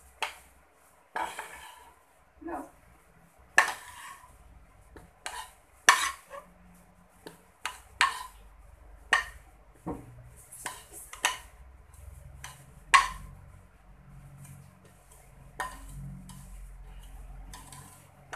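Metal slotted spatula scraping and knocking against a frying pan as sautéed carrots are scraped out into a mixing bowl: a dozen or so irregular sharp clinks and scrapes.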